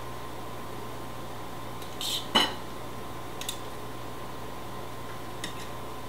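Metal tongs and a carving knife clinking against china plates while carving a roast chicken: a sharp clink about two seconds in, then a couple of faint taps, over a faint steady hum.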